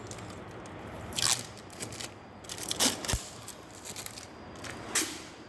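Handling noise from fitting a taped plastic toilet-cistern lid: three short scraping, crackling sounds, about a second and a half apart.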